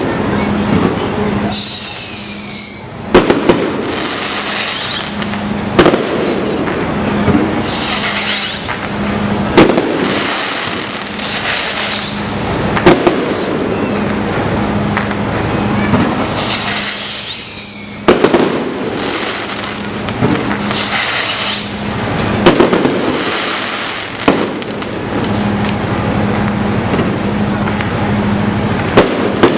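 Aerial fireworks display: shells bursting with sharp bangs every few seconds over a constant crackle. Twice, a high whistle falls in pitch and ends in a bang.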